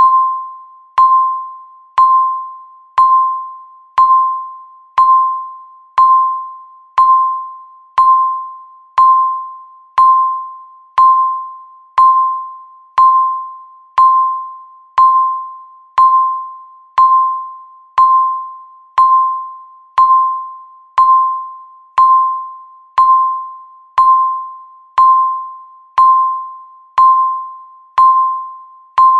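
Countdown timer beeping once every second: a single pitched tone that starts sharply and fades away before the next beep, in an even, unbroken rhythm.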